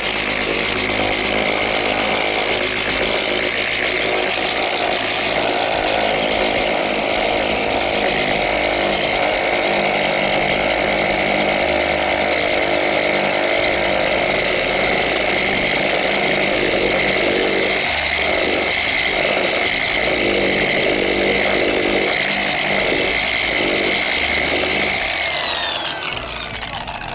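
Electric dual-action (DA) sander with a 320-grit pad running at steady speed, its motor whining as it sands old paint down smooth on a motorcycle fairing. Near the end it is switched off and the whine slides down as it spins to a stop.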